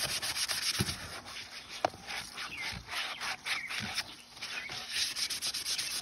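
A 400-grit sanding sponge wet-sanding a panel coated with SEM texture coating, in quick repeated back-and-forth rubbing strokes that knock down the coating's high spots.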